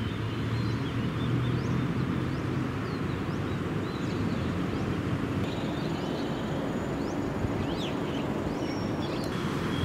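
Steady hum of city traffic with birds giving short chirping calls throughout, and a thin high steady tone in the second half.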